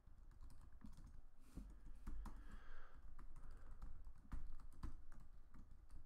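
Typing on a computer keyboard: a run of quick, unevenly spaced keystroke clicks.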